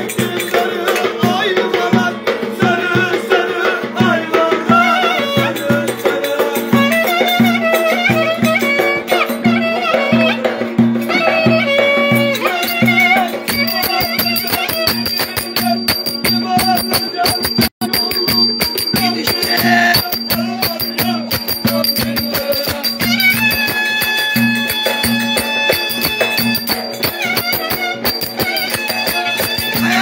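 Live Turkish folk dance music from a small band: a davul bass drum beats a steady rhythm under a clarinet melody, with a cümbüş (banjo-like lute) playing along. The sound cuts out for a moment about halfway through, and the clarinet holds long notes in the last third.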